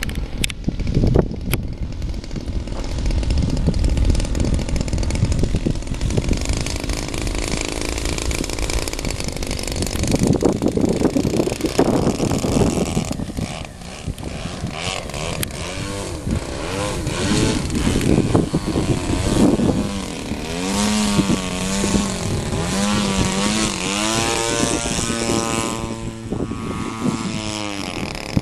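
Single-cylinder two-stroke petrol engine of a 55cc RC aerobatic plane (DLE-55 in a GP Yak-54) running with its propeller while hovering. Its pitch rises and falls over and over with throttle corrections, most clearly in the second half, and gusty wind buffets the microphone through the first half.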